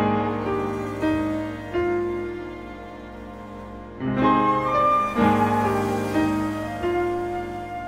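Live instrumental chamber music: grand piano chords struck near the start, about a second in and again around four and five seconds in, ringing under a flute line, with strings in the ensemble. The music is softer between about two and four seconds in.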